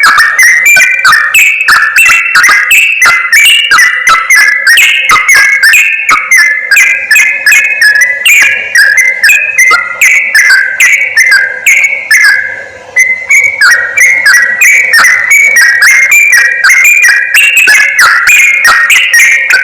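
Yellow-vented bulbul (trucukan) song, a lure recording: a loud, fast, continuous run of short bubbling, chattering whistled notes, with a brief break about two-thirds of the way through.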